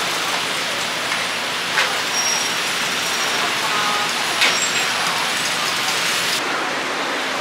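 Batter sizzling on a hot takoyaki griddle, a steady hiss, with two sharp metallic clinks of utensils.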